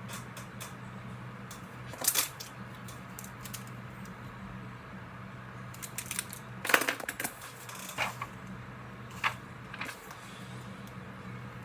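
Journal pages and stationery being handled: scattered light taps, clicks and paper rustles a few seconds apart, the loudest cluster about seven seconds in, over a faint steady hum.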